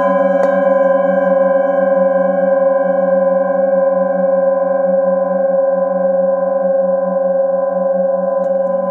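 Singing bowl struck with a padded mallet just after the start, then ringing on for several seconds as a steady blend of layered tones with a slow wavering beat in its low hum. Light touches of the mallet come near the end.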